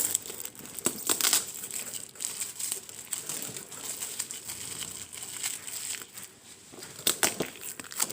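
Plastic refill pouch crinkling and rustling as it is handled and pulled open, with sharper crackles about a second in and again near the end.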